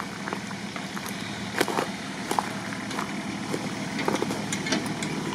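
Off-road SUV engine running steadily at a low idle, with scattered sharp clicks and snaps over it.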